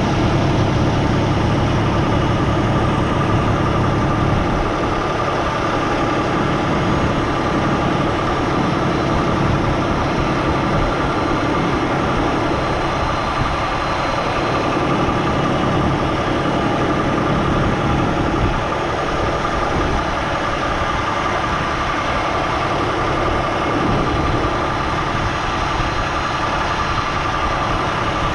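Semi truck's diesel engine running steadily, with a heavier low rumble for the first four seconds or so and a faint steady whine over the drone.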